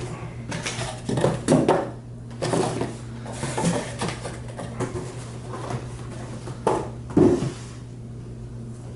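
Cardboard packaging being handled and opened by hand: irregular rustling, scraping and light knocks of box and packing material, over a steady low hum.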